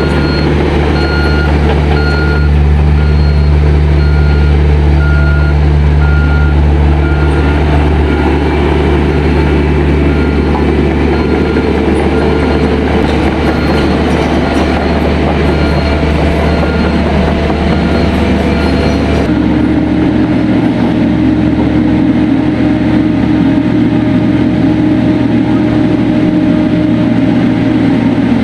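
Diesel engine of heavy earthmoving equipment running steadily, with a reversing alarm beeping about once a second that stops about two-thirds of the way through. Near the end the engine note changes abruptly.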